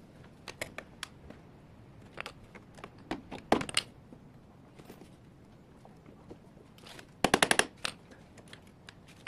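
Scattered metallic clicks and knocks of tools and parts on a scooter engine mount, with a louder knock cluster about three and a half seconds in and a quick run of about eight sharp clicks near the end, as the main engine-mount bolt is worked through its bracket.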